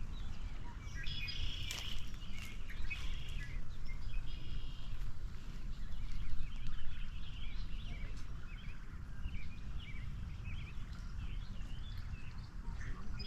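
Small birds chirping and calling, many short calls overlapping, over a steady low rumble.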